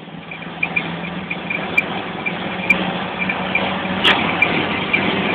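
Daihatsu Fourtrak's diesel engine, fuelled on a cooking-oil blend, pulling in third gear. Its pitch rises slowly and it gets louder as it revs, with a faint regular ticking over the drone and a single knock about four seconds in.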